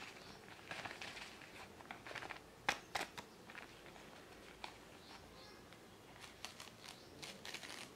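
Faint rustling and crinkling of a paper drip-coffee sachet being picked open by fingers, with a couple of sharp ticks about three seconds in.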